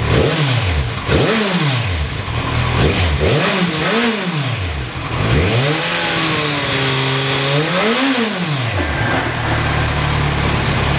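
A 2016 Kawasaki Z1000's inline-four engine is heard through dual Lextek SP8C carbon silencers, blipped several times in quick succession, each rev rising and falling back. A longer rev is held up for a couple of seconds, then the engine settles to a steady idle near the end.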